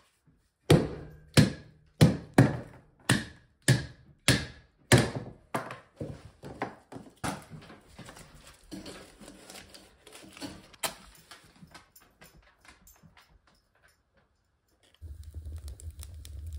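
Birch firewood being split into kindling with a knife: about ten sharp wooden knocks, roughly two a second, then lighter clicks and cracks as the sticks are handled. Near the end a low steady rumble starts as the fire burns in the woodstove.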